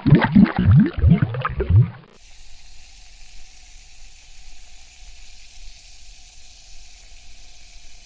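Water bubbling and gurgling, a quick run of rising bubble plops for about two seconds. It then cuts off abruptly into a quieter, steady fizzing hiss.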